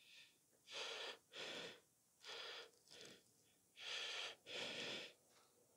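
A person breathing hard close to the microphone: three breaths, each an in-breath followed by an out-breath.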